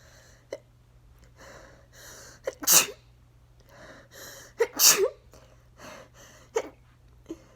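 A person sneezing twice, loudly, about two seconds apart during an allergy sneezing fit. Each sneeze is preceded by a drawn-in breath, with short sharp gasps between them.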